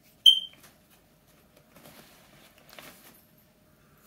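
A short, sharp high-pitched squeak about a quarter-second in, then soft rustling and scuffling of a nylon cat tunnel as a cat plays in it.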